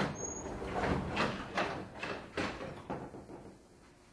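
The doors of a 113-series electric train sliding shut: a sudden slam followed by a run of knocks and rattles, about two a second, fading out after about three seconds.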